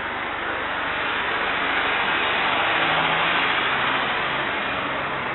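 Business jet's turbofan engines at taxi power, a steady rushing hiss that swells to its loudest about halfway through as the jet passes, then eases slightly.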